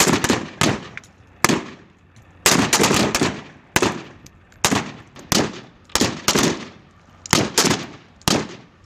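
AK-47 assault rifles firing single shots, about sixteen in an uneven rhythm of roughly two a second, some nearly overlapping, each shot followed by a short echo.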